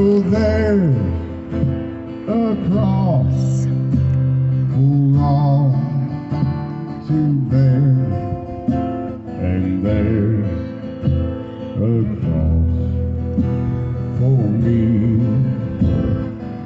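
Acoustic-electric guitar strummed through a PA, playing a gospel instrumental passage with a melody line bending in pitch over sustained chords.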